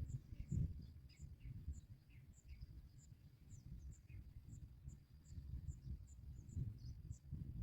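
Insects chirping: short, high chirps repeating about twice a second, with a faint steady high whine beneath them. A low, uneven rumble runs underneath.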